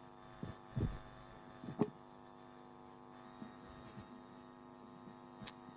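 Steady electrical mains hum from the sound system between speakers, with a few faint knocks, the loudest about a second in and another just under two seconds in.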